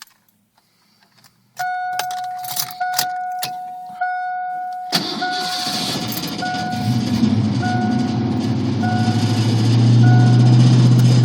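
Keys jingle and a dashboard warning chime starts repeating, then the 1988 Ford Mustang GT's 5.0 V8 is cranked and fires about five seconds in. It settles into a steady, loud fast idle that rises further, an idle the owner finds spiked too high for the mild weather.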